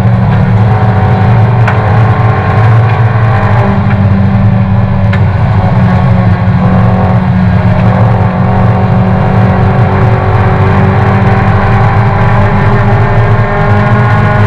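Toyota race car's engine heard from inside the cabin, running hard under racing load at fairly steady revs, its pitch sagging slightly near the end.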